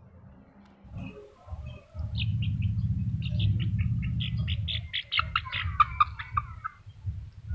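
A rapid series of short, high-pitched animal squeaks, several a second, starting about two seconds in, crowding together and partly dropping lower in pitch before stopping near the end. A low rumble runs underneath.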